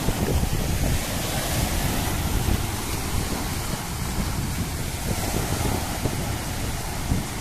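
Choppy sea surf washing and breaking near the shore, with wind buffeting the microphone.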